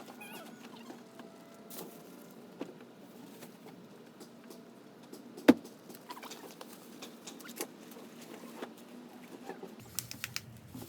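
Light rustling and small taps of things being handled, with one sharp click about five and a half seconds in.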